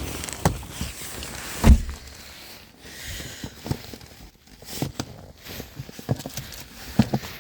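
Scattered clicks, taps and knocks of hands handling a car's interior trim, with one loud thump about 1.7 seconds in.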